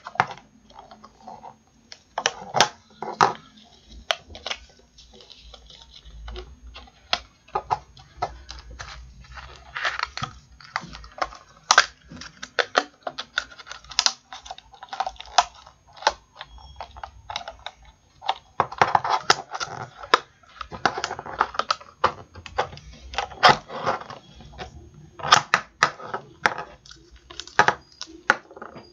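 Irregular clicks and crinkles of a cut-off plastic bottle neck and a rubber balloon being handled close up, as the balloon is stretched over the bottle's cut rim, with clusters of quick clicks now and then.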